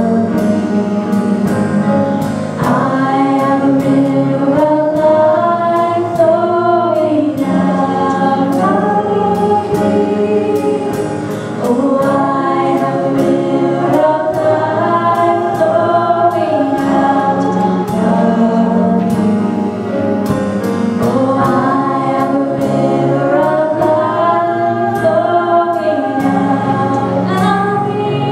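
A church worship song: several voices singing together over instrumental accompaniment with a steady beat.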